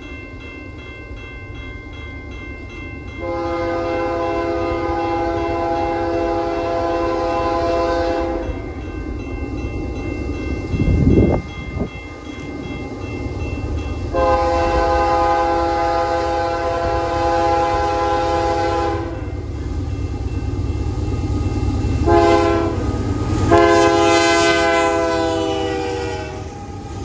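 Canadian Pacific diesel freight locomotive's multi-chime air horn sounding two long blasts, a short one and a final long one, the grade-crossing signal, as the train approaches. A steady low rumble runs underneath, with a brief loud burst of noise about eleven seconds in, and the locomotives rumble past close by near the end.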